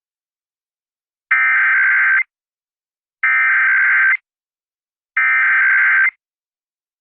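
Emergency Alert System SAME header on a broadcast radio station: three identical bursts of warbling digital data tones, each about a second long with a second of silence between, opening a monthly test of the system.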